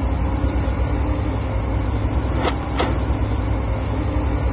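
Wind buffeting the microphone in a steady low rumble, with a faint steady hum under it. Two brief sharp clicks a third of a second apart just past the middle.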